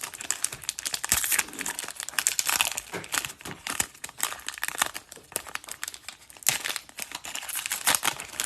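A hockey trading card pack's wrapper being torn open and crinkled, a dense, continuous crackling.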